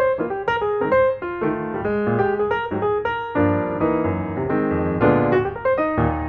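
Background piano music, a steady flow of notes with no pause.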